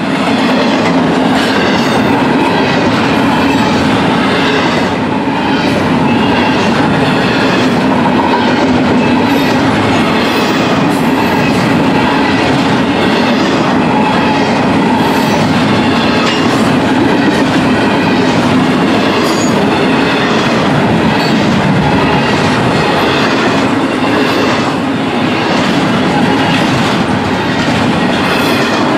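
Union Pacific double-stack container train cars rolling past: a loud, steady rumble of steel wheels on rail with a regular clicking over the rail joints.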